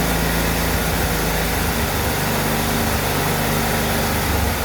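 John Deere STX38 lawn tractor engine running steadily, started on its newly fitted replacement ignition switch.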